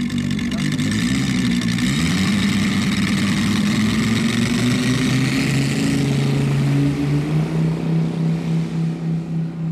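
Engines of a giant radio-controlled Junkers Ju 188 model running as it taxis out on its two propellers. The pitch rises about two seconds in as they are throttled up, and the sound shifts and starts to pulse near the end.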